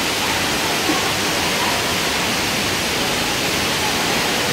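Steady rushing noise of running water echoing around an indoor water-park pool hall, with faint distant children's voices.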